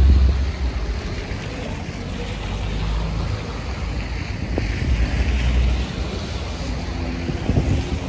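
Storm wind buffeting the phone's microphone: a low, gusting rumble, strongest at the start and again about five seconds in.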